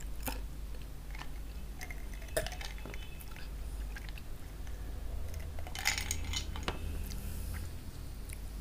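Drinking water from a glass close to the microphone, with small mouth and swallowing sounds. About six seconds in comes a cluster of sharp clicks, when the glass is set down on the tray.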